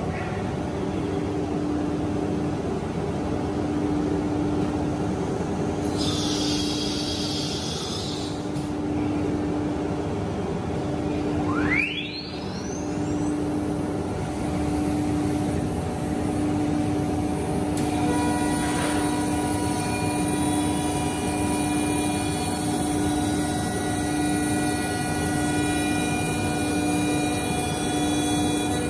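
HOLZTEK PRO-R1V9F CNC machining centre running, a loud steady machine hum with a constant low tone. About six seconds in comes a brief hiss, around twelve seconds a quick rising whine, and from about eighteen seconds several higher steady whining tones join in.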